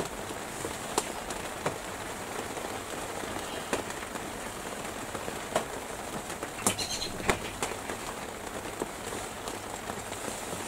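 Scattered light clicks and taps of a wooden stick working epoxy around the rim of a turned wooden box lid, over a steady background hiss; the sharpest click comes about two thirds of the way through.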